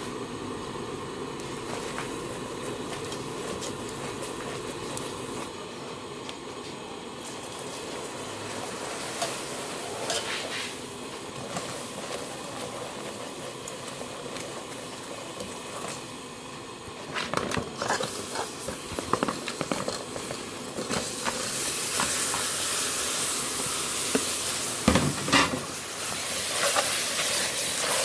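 Sugar syrup caramelizing and bubbling in a large aluminium pot, stirred with a metal ladle. About two-thirds of the way in, raw pork pieces clatter into the hot caramel and a loud sizzle starts, with the ladle knocking and scraping against the pot.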